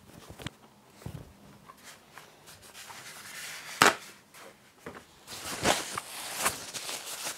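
Paper towel pulled off a roll and torn off with one sharp rip about halfway through, then crumpled and rubbed over the mouth with a rustling sound.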